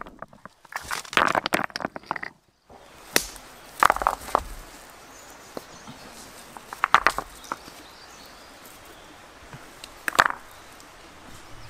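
Rocks clattering as they tumble onto other stones in a trench. After a short break, stones clack against stones one at a time as they are dropped into a wicker basket, four times, a few seconds apart.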